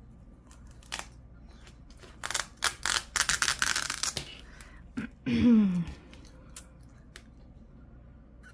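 A clear plastic zip envelope and a vinyl decal being handled and peeled: light clicks, then a couple of seconds of dense crinkling and crackling of plastic. About five seconds in, a short wordless vocal sound falls in pitch.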